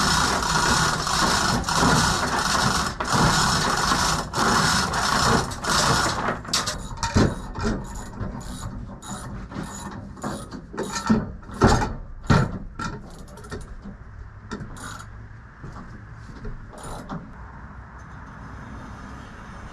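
A hand-worked ratcheting mechanism clicking rapidly for about six seconds, followed by a series of separate metal clanks and knocks that die away about two-thirds of the way through.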